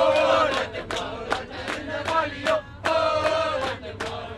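A group of voices chanting and singing together, led by a man's voice, with hand claps in time, about two to three claps a second.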